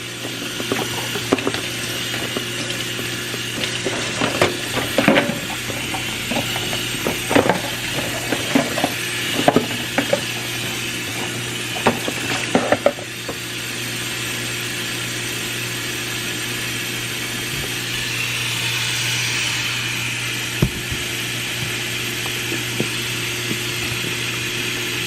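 Scattered knocks and clicks of things being handled over a steady low hum, giving way after about thirteen seconds to a steady rushing noise.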